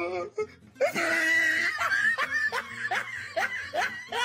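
A person laughing: a drawn-out high-pitched laugh a little under a second in, then a run of short rising bursts, about three a second.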